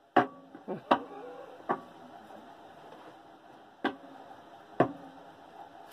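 Tarot cards being handled in the hands: a handful of sharp, short clicks of card on card, unevenly spaced about a second apart, over faint room tone.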